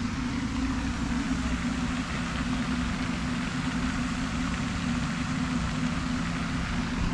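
A steady low mechanical hum, like an engine idling, under an even hiss.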